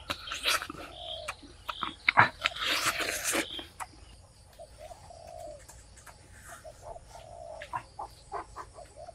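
Short animal calls, each a brief falling cry, repeated several times among scattered sharp knocks and clicks. A burst of noise lasts about a second, some three seconds in.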